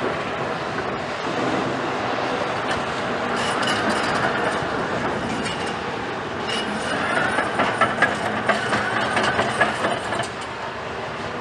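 Cat 374F excavator's C15 diesel engine running under load as the machine slews and works its grab in brick rubble, with metal squealing and, from about seven to ten seconds in, a run of clanking and clattering.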